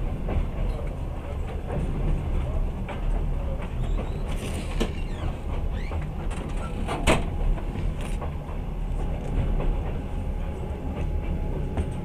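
Passenger train running, heard from inside the carriage: a steady low rumble with scattered clicks and rattles, and one sharper click about seven seconds in.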